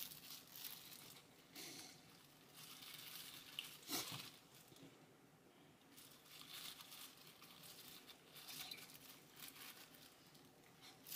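Faint crinkling and rustling of a disposable plastic glove as hands lay spinach onto rice for a gimbap roll, with one soft tap about four seconds in.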